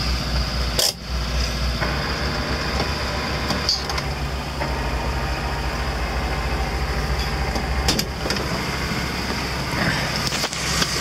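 A car engine idling steadily, heard from inside the cabin, with a few short clicks about a second, four seconds and eight seconds in.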